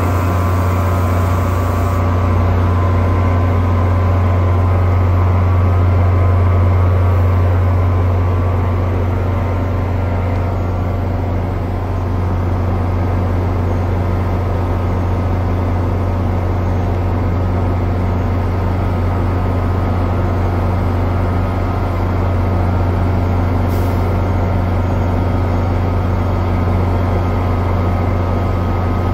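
Diesel locomotive, an EMD GP40PH-2B, running steadily with a constant low drone and a steady even hum above it.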